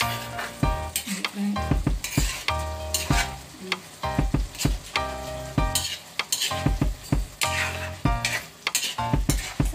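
Metal spatula stirring and scraping around a metal wok, with sharp scrapes and clinks about twice a second, over the sizzle of the simmering chicken liver adobo.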